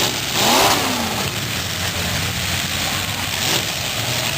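Demolition derby car engines running and revving, with a loud surge about half a second in where engine pitch rises and falls.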